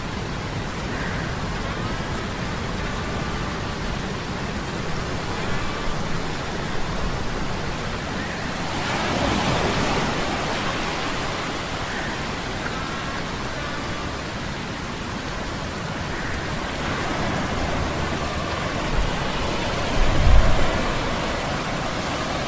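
Sea-storm ambience of steady rain and rushing wind over a faint low mechanical hum. The storm noise swells about halfway through, and a deep rumble rises near the end.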